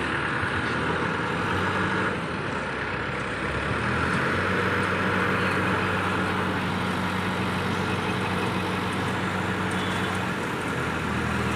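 A crane's engine running steadily: a low, even hum under a broad mechanical wash.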